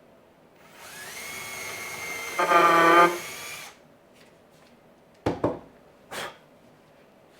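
Cordless drill driving a screw into cedar: the motor whirs up and holds steady, then strains louder for about a second as the screw bites in, and stops. A couple of short knocks follow.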